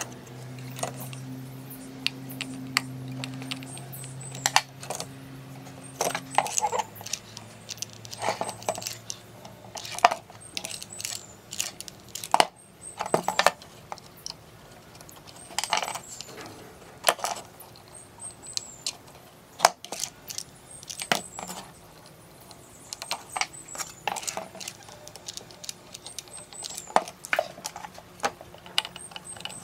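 Irregular sharp clicks and light metallic taps of tweezers and electronic components being handled against a circuit board.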